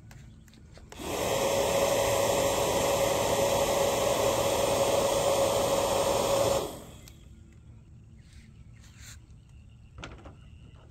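Bubble gun's small motor and fan running with a steady whine, starting about a second in and cutting off suddenly after about five and a half seconds.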